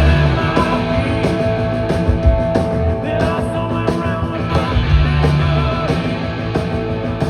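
Rock band playing live in an instrumental stretch between sung lines, with electric guitars, bass and drums keeping a steady beat.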